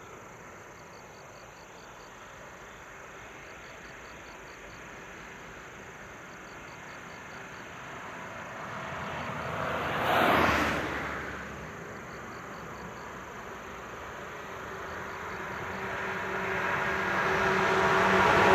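A 115-series electric train approaching along the track, its running noise rising steadily over the last several seconds with a held hum, over faint cricket chirps. About ten seconds in, a brief swell of noise rises and fades.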